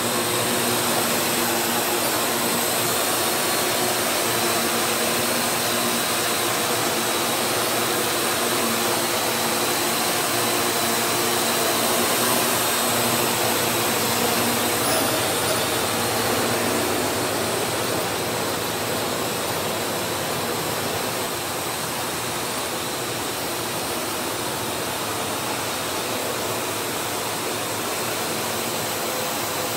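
Parrot AR.Drone quadcopter in flight, its four propellers giving a steady whirring whine with several held tones. The tones shift about halfway through, and the sound drops a little in level later on.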